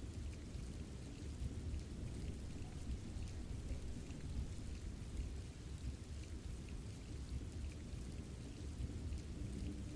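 Recorded storm ambience: steady rain with scattered drop ticks over a continuous low rumble. Soft sustained musical tones come in near the end.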